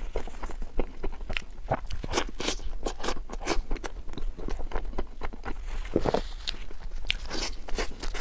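Close-miked chewing of a soft filled bread bun: a rapid run of wet mouth clicks, smacks and squelches as the mouthful is worked.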